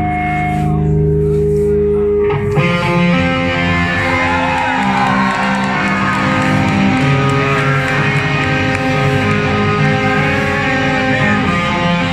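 Live band playing loud guitar-driven metal through a venue PA. Held guitar chords ring for about two and a half seconds, then the full band comes in with dense guitars and drums.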